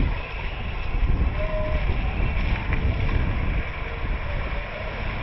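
Low, rough rumble of a moving vehicle, with road and wind noise and a few faint short tones over it.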